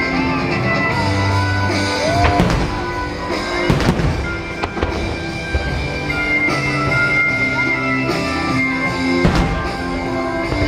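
Music accompanying a fireworks display, with sustained notes throughout and firework shell bursts banging through it about two, four and nine seconds in.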